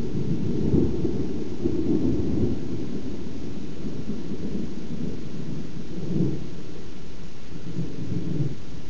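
Rolling thunder from surrounding storms: a long, low rumble that swells about one to two seconds in and again near six and eight seconds.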